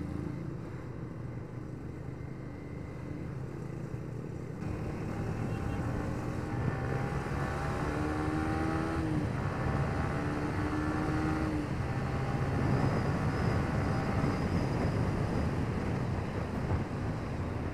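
2018 Yamaha Vixion R 155 VVA's single-cylinder engine under way with wind rush. About five seconds in it grows louder, and its pitch climbs in steps with short breaks between them as it accelerates through the gears.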